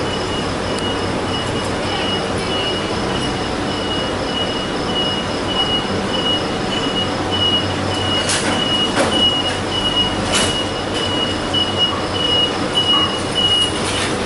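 A high, steady electronic beep repeats over a constant background hiss. From about eight seconds in come several sharp metal clanks and knocks as a wheeled ambulance stretcher is pulled out of the ambulance and rolled away.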